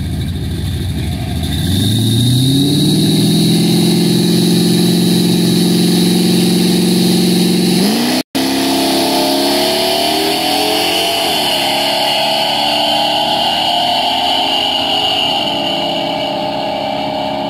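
Chevrolet C10 pickup engines revving up at the start line about two seconds in and held at high revs. After a brief dropout the trucks launch and pull hard, the pitch climbing, dipping at a gear change and climbing again.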